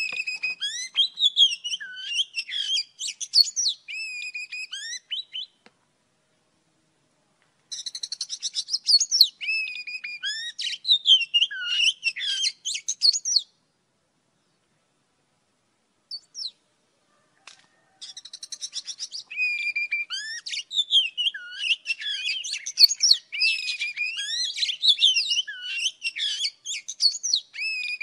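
Oriental magpie-robin singing: three long bouts of varied high whistles, warbles and trills, with a pause of about two seconds and a longer pause of about four seconds between them.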